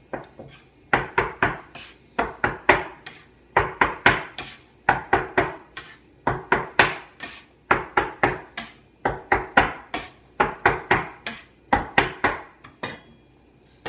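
Metal bench scraper chopping down through potato gnocchi dough onto a wooden butcher-block board, cutting the flour in. Quick runs of three to five sharp knocks with short pauses between them.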